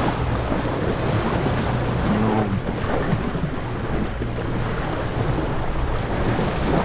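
Wind buffeting the microphone over the wash of open sea water around a small fishing boat, with a steady low hum underneath.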